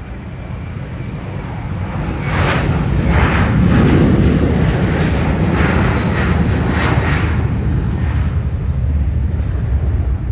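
Boeing 737-900ER jet engines at takeoff thrust during the takeoff roll. The noise builds over the first few seconds, then holds loud and steady with repeated surges.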